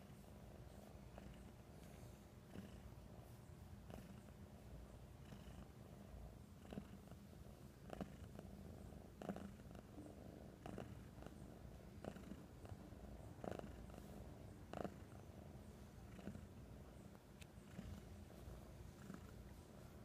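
Domestic cat purring softly and steadily while being stroked, the purr swelling briefly about every second and a half.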